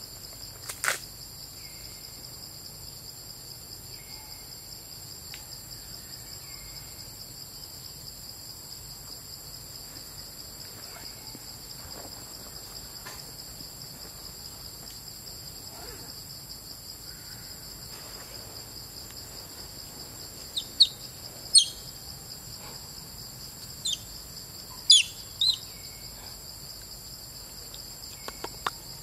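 Forest insect chorus: a steady high buzzing drone that never lets up. About two-thirds of the way through, several short, sharp high chirps cut in, louder than the drone.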